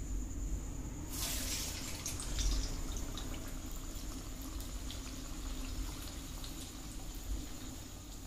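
Urad dal vada batter dropped into hot oil: a burst of sizzling about a second in, settling into steady frying with scattered crackles.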